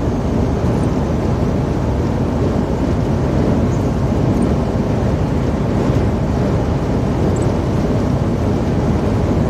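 Steady low rumble of a lorry driving at motorway speed, heard inside the cab: engine and tyres on a wet road surface.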